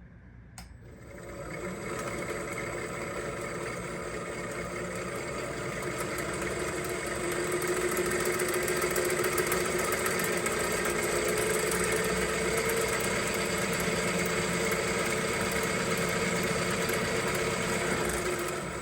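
Restored Delta 1460 wood lathe running on its three-phase motor: a click about half a second in, then a steady machine hum that comes up within a second or two, grows louder about halfway through, and drops away near the end.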